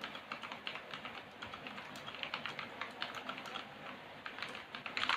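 Fast typing on a mechanical keyboard with Outemu Blue clicky switches lubed with hair conditioner: a dense, irregular run of key clicks. The uploader says the lube has damped them so they sound like Brown (non-clicky tactile) switches.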